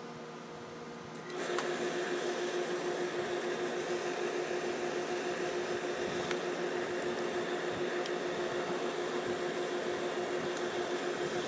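Steam-pressing equipment running steadily: a constant hum with a held tone over a hiss. It starts suddenly about a second in, while a tailor's steam iron is worked along the taped seam of a suit jacket front.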